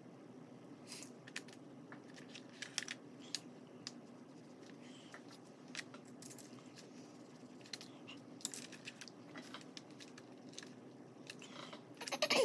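Scattered light clicks and taps of oil pastels being handled, ending in a short clatter as a hand reaches into the plastic tray of metallic oil pastels, over a low steady room hum.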